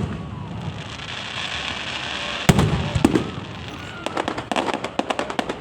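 Fireworks display: a loud bang about two and a half seconds in, followed by a string of sharp crackling cracks.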